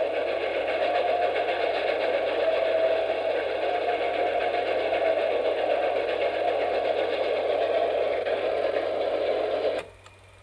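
Steady mechanical clatter of an 8mm film projector running, cutting off suddenly with a click near the end and leaving a faint low hum.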